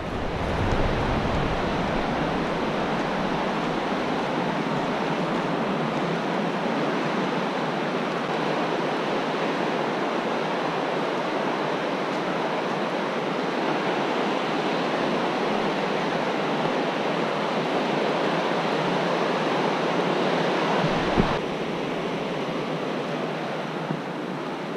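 Steady rush of the Deschutes River's rapids near Dillon Falls, a continuous even roar of fast water that drops a little in level about 21 seconds in.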